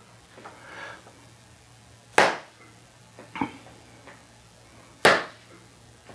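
Locomotive punches, downward knuckle punches, smacking into a focus mitt: two sharp smacks about three seconds apart, with a lighter knock between them.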